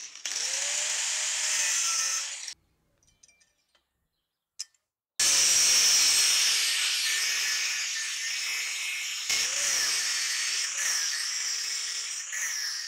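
INGCO angle grinder with a thin cut-off disc cutting into a steel knife blank, a harsh grinding hiss over the motor's whine. It stops about two and a half seconds in, leaving near silence with one small click, then starts cutting again about five seconds in. Its pitch rises and dips several times near the end as each relief cut is made.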